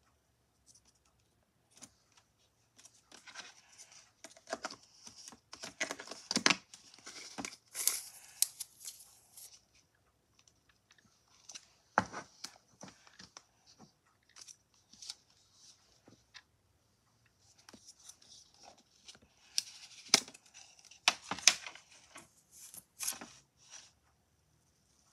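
Slime being squished, pulled and poked by hand, making sticky crackling and popping, with sharp clicks from plastic slime tubs being handled. The sounds come in irregular bursts, with a sparser stretch in the middle.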